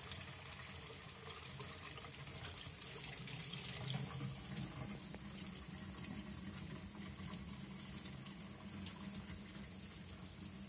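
Bathtub tap running steadily, water pouring into the tub and over hands washing a small animal.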